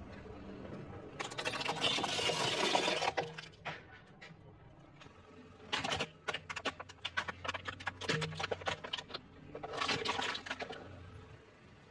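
Plastic toys crushed under a car tyre: a crackling crunch about a second in as a plastic rattle toy gives way, then from about six seconds a rapid run of sharp plastic cracks and snaps as a toy water gun breaks, ending in a short crunch near ten seconds.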